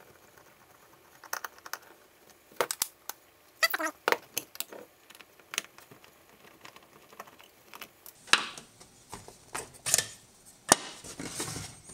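Small screwdriver backing screws out of a plastic multimeter's back cover, heard as scattered clicks and short scrapes. Near the end comes louder plastic handling and a sharp click as the back cover is lifted off.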